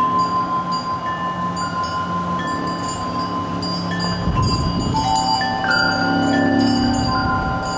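Metal wind chimes ringing: single pure tones struck at irregular moments, each ringing on and overlapping the others.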